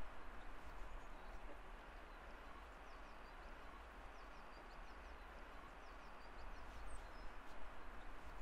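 Faint outdoor background noise with a steady low rumble, and small birds chirping many times throughout.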